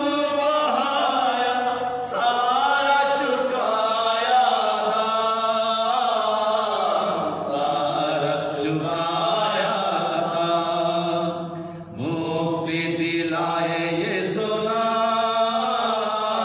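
A man singing a slow Hindi Christian hymn into a microphone, with long held, wavering notes.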